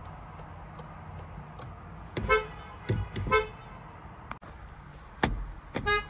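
Volkswagen car horn sounded in short toots: two brief beeps about a second apart, then a third near the end, with a couple of dull thumps in between.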